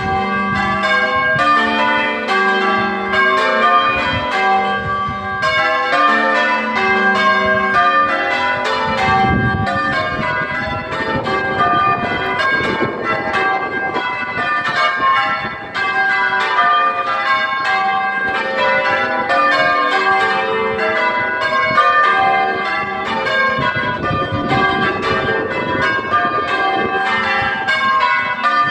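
A ring of six church bells being rung in changes, one bell struck after another in a steady unbroken rhythm. The bells are 18th- and 19th-century cast bronze, the back five by Thomas Osborn in 1798 and the treble by Taylors in 1860. The ring is known to be very oddstruck, so the striking is hard to keep even.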